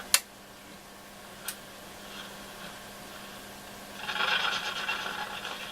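International HiFi transistor radio's loudspeaker giving faint hiss over a steady hum as it is tuned across the band, with two sharp clicks early on. From about four seconds in comes a louder crackly burst of static.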